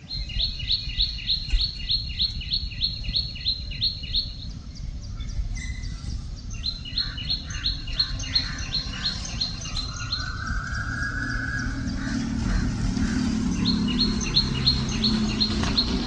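A small songbird singing a rapid series of repeated high chirps, about three to four a second, in three bouts. It sings over a steady low rumble.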